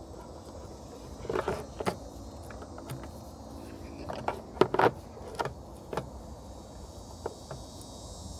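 Sharp clicks, knocks and rattles of plastic headlight parts and an LED bulb being handled and fitted, in small clusters with pauses between. Crickets chirr steadily underneath.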